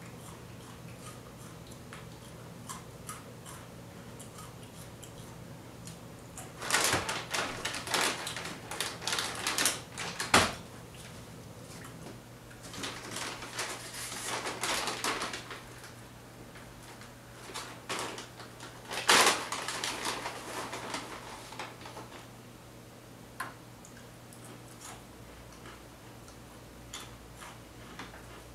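Plastic bag and wrapping crinkling and rustling in three bursts of a few seconds each, with scattered small clicks in between over a faint steady hum.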